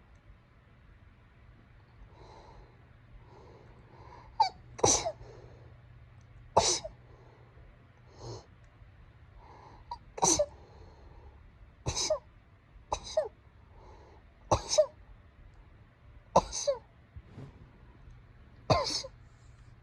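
A person sneezing over and over: about ten sharp sneezes, a second or two apart, some in quick pairs, each falling in pitch.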